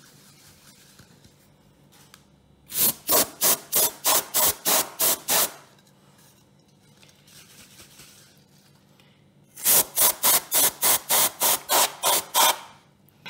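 Compressed-air duster can blowing short, quick blasts through a straw nozzle into a sewing machine's bobbin and hook area, to dislodge lint that is making the mechanism stick. It comes in two runs of about ten hissing puffs each, about four a second, with a pause of a few seconds between them.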